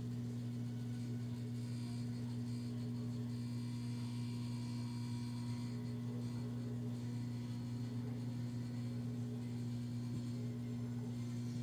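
Steady low electric hum, even and unchanging throughout.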